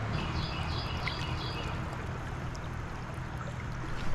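Tailwater river flowing steadily, an even rushing of water, with a few faint, short high chirps in the first second and a half.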